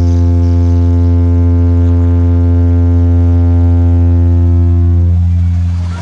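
Sound system playing a loud, steady low bass tone for a sound check, with an even stack of overtones; it dips briefly near the end.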